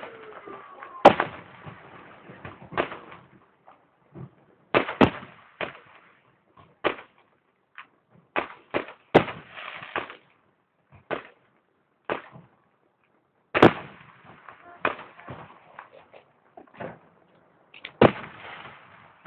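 Fireworks display: aerial shells bursting in a string of sharp bangs at irregular gaps, sometimes several within a second, with the loudest about a second in. Some bangs trail off in a brief crackling hiss.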